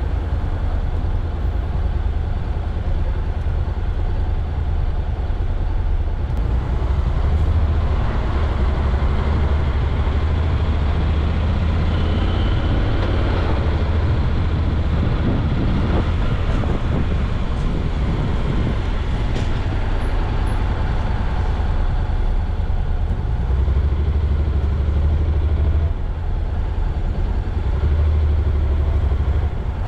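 Steady cabin noise of a car driving on a city street: a constant low engine and road rumble with tyre hiss, heard from inside the car.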